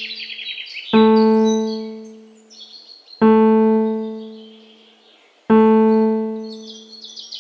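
Relaxation music: a single low piano note struck three times, about two seconds apart, each left to ring and fade. Small birds chirp in quick high trills over it, at the start and again near the end.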